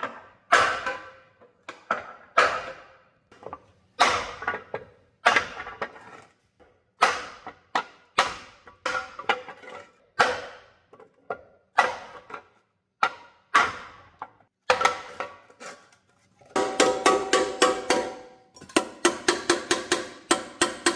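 Hammer blows on a dented metal engine oil pan, each strike ringing and fading, knocking out a dent that had pressed into the oil pickup screen. Single blows come about once a second, then from about 16 seconds in a quick run of several taps a second.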